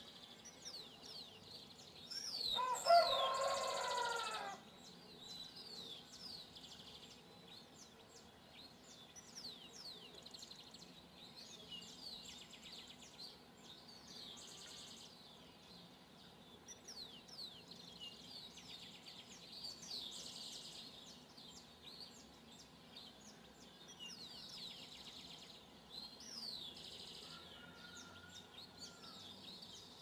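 Small birds chirping at dawn, many short high chirps overlapping throughout. About two and a half seconds in, a rooster crows once, a louder call lasting about two seconds.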